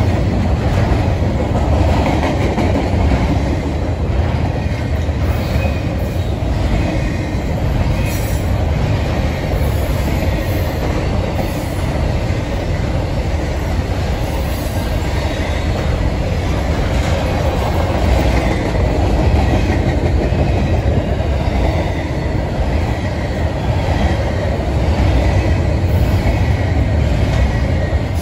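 Double-stack intermodal freight train rolling past close by: a steady, loud rumble of steel wheels on the rails with the clatter of wheels over rail joints.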